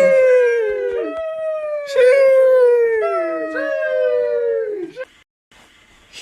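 The 'sheesh' meme sound effect: a high, drawn-out falsetto cry that slides down in pitch over several long notes, breaking for about a second of near silence near the end before it starts again.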